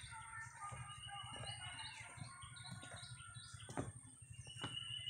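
Wild birds calling: a run of short high notes and two held, whistle-like notes, one about a second in and one near the end. A sharp knock near the end of the fourth second is the loudest moment.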